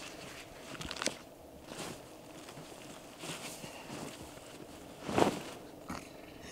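Rustling and scuffing of clothing, gear and a foam sleeping pad in dry grass as a person lays out a pad and settles down to lie on it, in several short bouts, the loudest about five seconds in.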